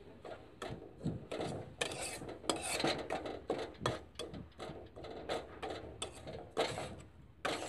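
Metal spatula scraping and stirring mustard oilcake in a metal pan as it roasts in oil, in quick, repeated strokes about three a second.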